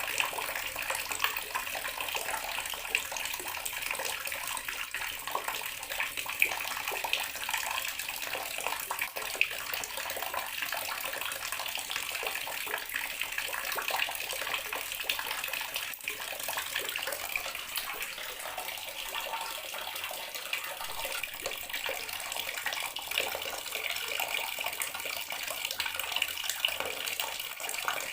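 Bathroom water tap running steadily, the stream splashing into a basin with small irregular spatters.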